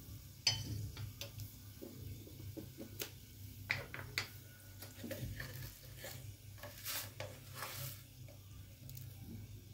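Whole spices (cardamom, cinnamon stick, cloves and a bay leaf) sizzling faintly in hot sunflower oil in a nonstick kadai, with scattered small crackles and pops.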